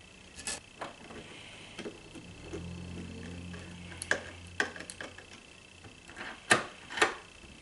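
Sharp clicks and knocks of screws and lock hardware being handled and fastened while mounting a smart deadbolt's interior control unit, the two loudest near the end. A low steady hum runs for about two seconds in the middle.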